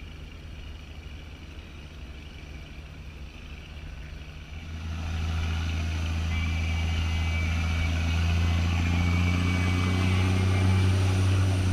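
Low, steady drone of the towing speedboat's engine, quiet at first and much louder from about five seconds in, with a rushing hiss over it.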